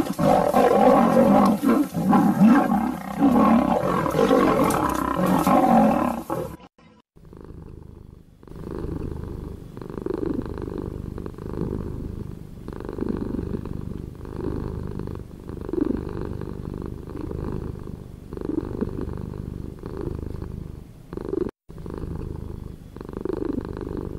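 Lion roaring sound effect, loud and continuous, cutting off abruptly about six and a half seconds in. After a short pause comes a deep cat purr that swells in a slow, even rhythm about every two and a half seconds.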